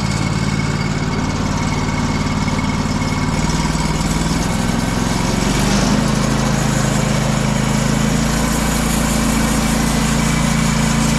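An engine running steadily, its note shifting slightly about four to five seconds in.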